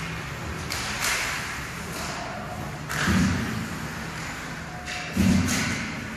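Hockey rink boards being struck: a light knock about a second in, then two heavy thuds with a rattle, about two seconds apart.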